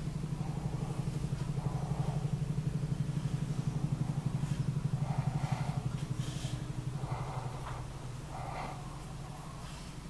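Low, pulsing engine hum of a motor vehicle running nearby. It swells to its loudest in the middle and eases off after about seven seconds.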